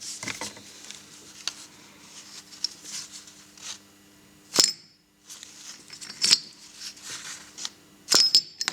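Sharp metallic clicks and knocks of small steel parts being handled, the loudest three about four and a half, six and eight seconds in, the last a quick double knock with a brief ring, over a faint steady hum.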